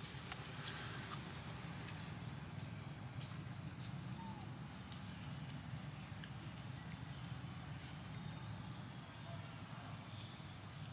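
Steady high-pitched drone of an insect chorus, over a low background hum, with a few faint ticks near the start.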